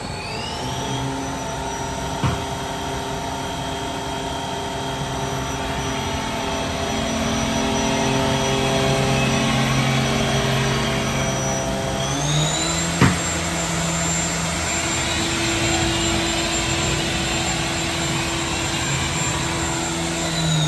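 Haas EC-1600 horizontal machining center running, a high motor whine over several steady lower hums. The whine rises in pitch at the start as the drive speeds up, steps up again about twelve seconds in, and begins to fall right at the end. Two sharp clicks come about two and thirteen seconds in.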